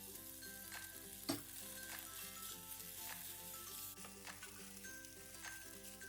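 Food sizzling as it fries in a pan while being stirred, with a sharp knock about a second in. Background music plays underneath.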